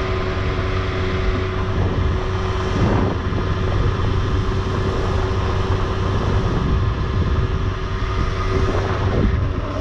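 Aprilia two-stroke sport moped running steadily while being ridden, fairly quiet on its original exhaust, with wind noise on the microphone.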